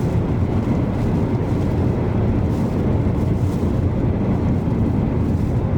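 Steady low rumble inside a moving car: road and engine noise mixed with strong rear-flank downdraft winds buffeting the vehicle.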